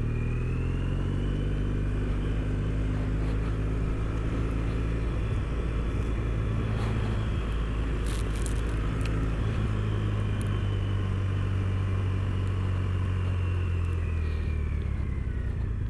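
Triumph Bonneville parallel-twin motorcycle engine running steadily under way, its note shifting a little in pitch with the throttle.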